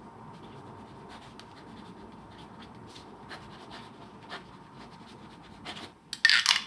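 A TWSBI Eco fountain pen's 1.1 mm stub nib scratching softly across paper in short strokes as words are written. About six seconds in comes a louder burst of sharp clicks as the pen is handled and capped.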